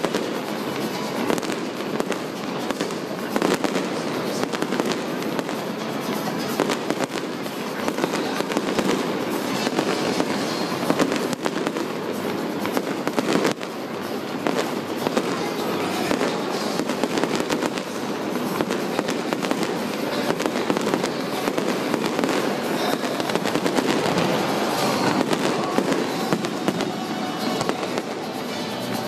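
Harbour fireworks display: aerial shells bursting one after another in a continuous run of bangs and crackling.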